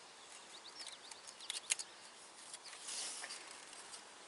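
Faint scattered clicks and scrapes of a utility knife working a small piece of plastic, the sharpest clicks about a second and a half in and a short raspy scrape around three seconds.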